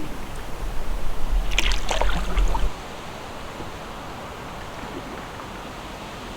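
Canoe paddling: a double-bladed paddle dipping and splashing water, over a low wind rumble on the microphone. About three seconds in it cuts to a steadier, quieter wash of water.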